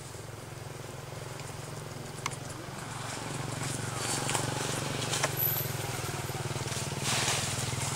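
A steady low mechanical hum, with a few sharp clicks and a short burst of rustling near the end.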